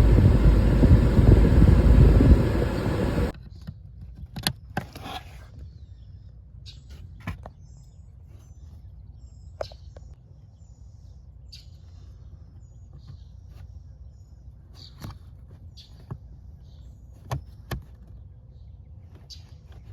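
Newly installed HVAC blower motor of a BMW E90 328i running, a loud steady rush of air with a faint hum; its running shows the replacement works. It cuts off suddenly about three seconds in, leaving a faint background with a few scattered clicks and short high chirps.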